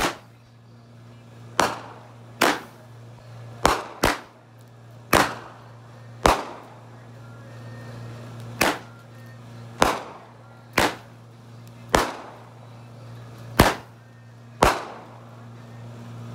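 Red Apple Fireworks Blue Dragon 7-shot cake firing: a series of about thirteen sharp bangs, irregularly spaced one to two seconds apart, each with a short fading echo. A steady low hum runs underneath.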